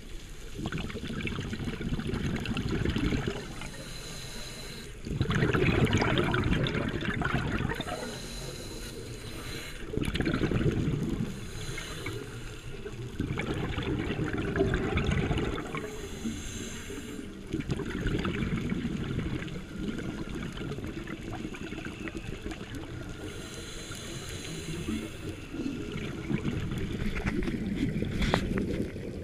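Scuba divers' regulators venting exhaled air as bubbling, gurgling bursts about every four to five seconds, with quieter gaps between breaths, heard underwater.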